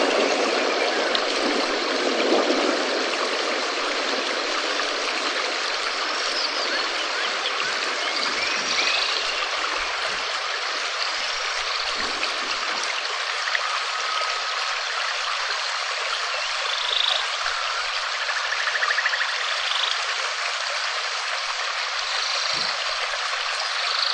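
Steady rain, an even hiss with no letup, with faint short chirps here and there.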